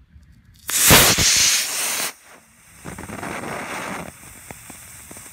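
Model rocket motor igniting and launching: a loud rushing hiss starts about a second in and lasts about a second and a half, then a quieter hiss follows for about a second, with scattered crackles after it.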